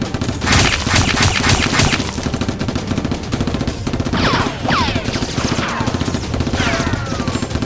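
Rapid automatic gunfire sound effects, dubbed over a Nerf blaster fight, with a burst of sharp shots about half a second in. Several falling whistles follow in the second half.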